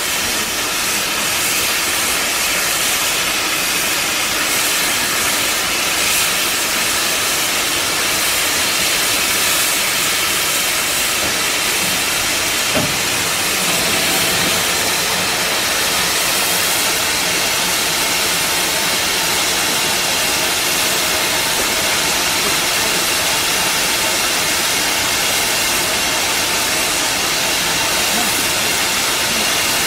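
Steam locomotive letting off steam: a loud, steady hiss with no chuffing beat.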